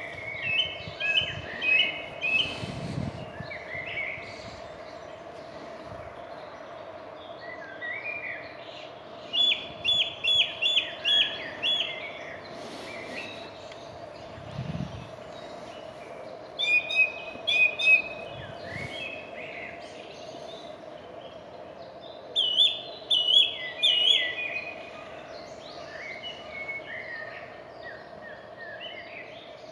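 A songbird singing in phrases of quickly repeated, high, clear notes, with a new phrase every six seconds or so and a steady faint hum underneath.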